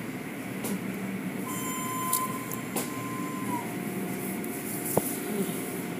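Tunnel car wash machinery running with a steady mechanical hum as the cloth wash curtains work over a car. A faint thin whine comes in about a second and a half in and drops to a lower pitch about halfway through, and there are a few sharp knocks.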